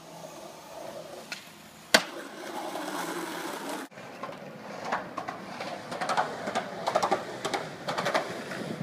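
Skateboard wheels rolling on pavement, with one sharp clack of the board about two seconds in. About four seconds in it changes to wheels rolling over rough parking-lot asphalt, with a run of irregular clicks and knocks.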